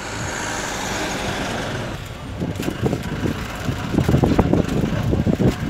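Moving-vehicle noise: a steady rush for about two seconds, then an irregular low rumble with knocking.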